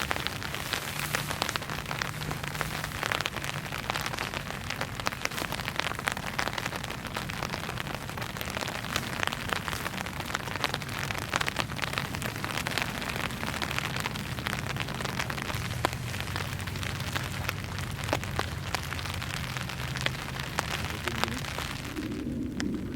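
Rain falling steadily, with many sharp individual drops hitting a surface. The rain sound drops away abruptly near the end.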